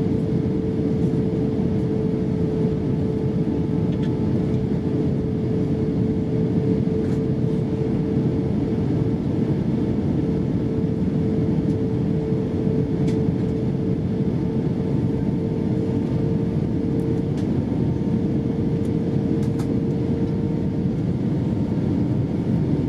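Steady cabin noise inside an Airbus A320-232 airliner in descent: an even rush of airflow and its two IAE V2500 engines, with a steady hum under it and a few faint clicks.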